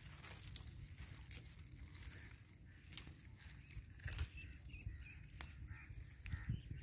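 Quiet outdoor field sound: a low, steady rumble with a few faint clicks of leafy greens being snapped off by hand. Faint bird chirps come in during the second half.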